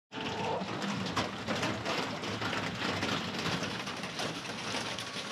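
Rain falling on a corrugated chicken-run roof, heard from underneath: a steady, dense patter of many small drop hits.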